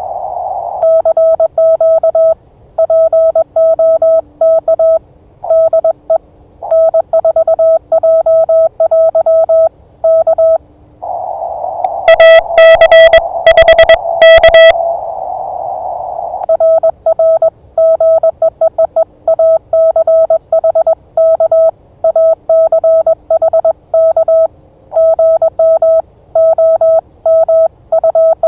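Morse code sent on an amateur radio transceiver: a steady mid-pitched sidetone keyed on and off in fast dits and dahs. Near the middle the sending stops, narrow-filtered band hiss from the receiver comes through, and a much louder, harsher burst of keyed tone cuts in for about two seconds.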